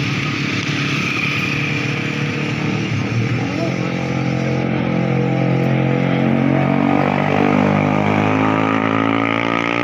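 Motorcycle engines passing on a road. In the second half, a Yamaha R15 V3's single-cylinder engine, breathing through an Austin Racing full-system exhaust, rises in pitch and grows louder as it accelerates toward the microphone.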